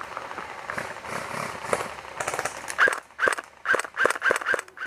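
Airsoft rifle firing single shots in quick succession: about seven sharp shots a third of a second apart in the second half, after a stretch of steady rustling hiss.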